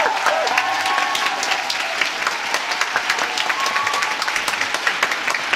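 Audience applause: dense, steady clapping, with a few voices calling out near the start and again a little past the middle.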